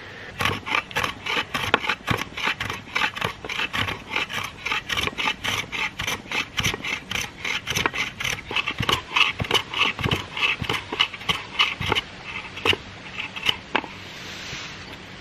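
Quick back-and-forth scraping strokes of a hand tool on wood, about four a second, stopping a little before the end.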